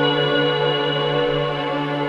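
Ambient background music with sustained, slowly shifting tones.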